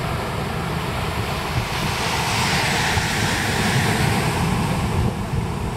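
Wind buffeting the microphone as a steady rumble, with a rushing noise that swells up about two seconds in and fades again a couple of seconds later.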